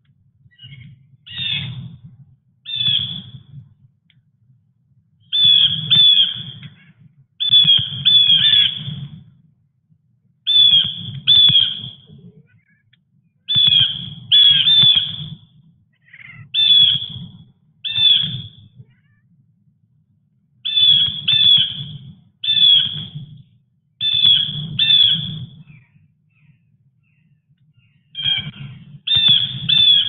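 A bird squawking over and over: harsh calls in pairs and threes, a group every second or two.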